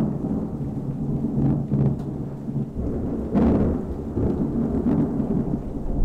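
Thunder rumbling low and without a break through a rainstorm, swelling louder about halfway through.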